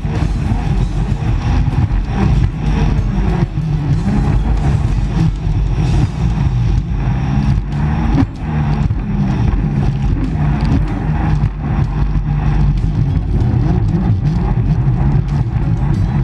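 An engine running steadily and loudly, with frequent short knocks throughout.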